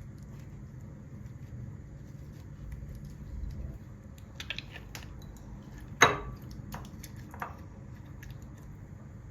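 Light clicks and taps of small objects being handled, with one sharp ringing clink about six seconds in.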